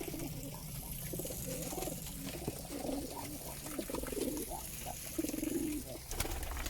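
Domestic pigeons cooing repeatedly, low rolling coos one after another, over a low steady hum.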